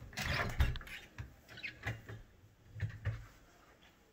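An interior door being opened, then footsteps thudding down a few wooden steps.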